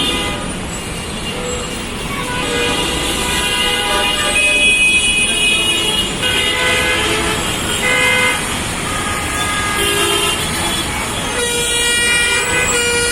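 Bus and other vehicle horns honking over and over, several at once at different pitches, each blast lasting from under a second to about two seconds, over steady road-traffic noise.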